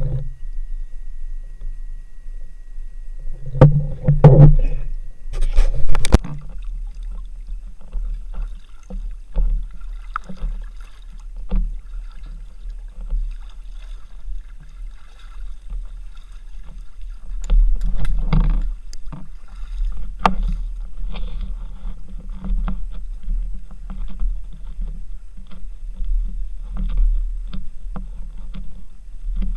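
Water moving around a swimming spearfisher, heard as a steady low, muffled rumble with many small clicks and knocks. Louder knocks come about 4 and 6 seconds in, and again near the middle.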